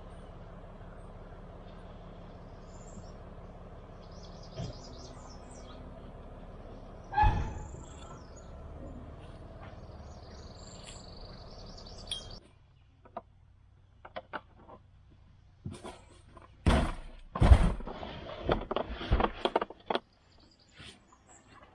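A hard plastic cooler being shifted and set down in an SUV's cargo area: a run of sharp knocks and thuds in the second half. Before that, birds chirp over a steady low hum, with one thump about seven seconds in.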